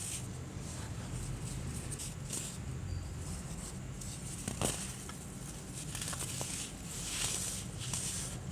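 Compressed baking soda being crushed: a run of irregular crunchy crackles, with one sharp snap about four and a half seconds in, over a low steady hum.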